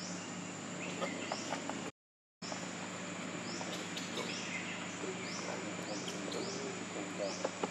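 Outdoor insect chorus: a steady high drone with a short rising chirp repeated about every two-thirds of a second. The sound cuts out completely for half a second about two seconds in.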